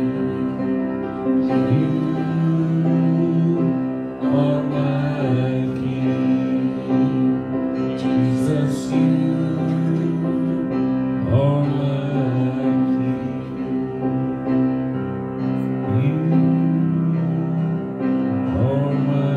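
Slow, soft worship music: sustained chords that change every few seconds over a steady bass line.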